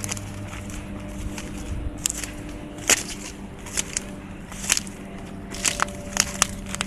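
Footsteps crunching over flood debris and dry reeds, roughly one crunch a second from about two seconds in, with a quick cluster of snaps near the end. A steady low hum runs underneath.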